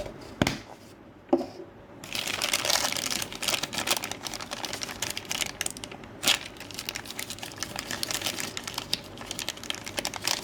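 Plastic packaging crinkling and tearing as it is handled and opened, a dense run of crackles through most of the stretch with a couple of sharp clicks.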